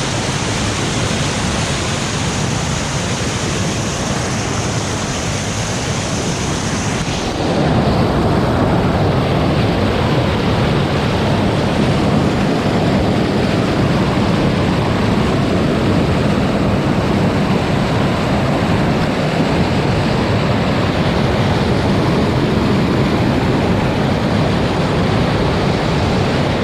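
Whitewater pouring over a small river drop close by, a loud steady rush. About seven seconds in the rush turns louder and deeper.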